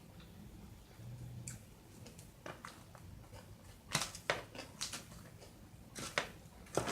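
Close-miked eating: chewing with a few short sharp crunches and wet mouth clicks, the loudest clustered about four and six seconds in.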